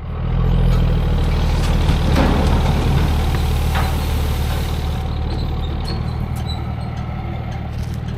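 A truck engine comes in suddenly and runs steadily at idle with a low, even hum.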